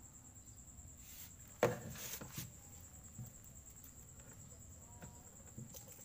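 Hand work inside a washing machine's opened housing: one sharp knock about a second and a half in, then a few fainter clicks and rattles. A steady high cricket chirring runs underneath.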